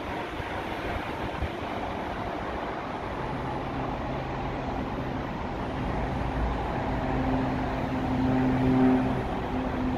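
Beech C-99 Airliner's twin Pratt & Whitney PT6A turboprops at takeoff power as it climbs out. A steady rushing engine noise comes first; about three seconds in, a propeller drone of several steady tones comes through and grows louder toward the end.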